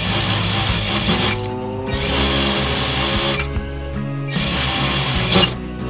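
Typical industrial sewing machine running steadily, stitching a second row along a hem, over background music.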